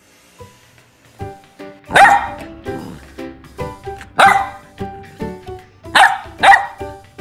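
Golden retriever puppy barking four short, sharp times, the first about two seconds in and the last two close together near the end, over light background music.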